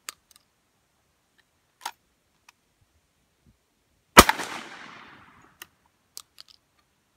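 A CBC Model 151 single-shot break-action 12-gauge shotgun fires one 1 oz slug about four seconds in, a single loud report with an echo trailing off over about a second. Light clicks of the action being loaded and closed come before the shot, and clicks of the gun being broken open with the ejector throwing out the empty shell come after.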